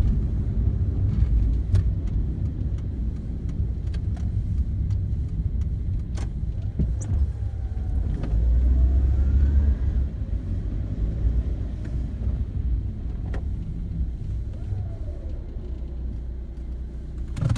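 Low rumble of a car's engine and tyres heard from inside the cabin as it drives slowly and pulls in to park, with scattered small clicks and a louder knock at the very end.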